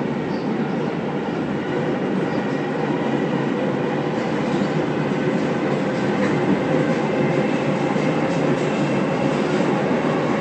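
Steady low rumbling noise with faint rattling, unbroken throughout.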